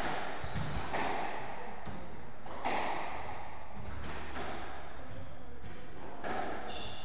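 Squash rally: sharp smacks of the ball off the rackets and court walls every second or two, with shoes squeaking on the wooden court floor.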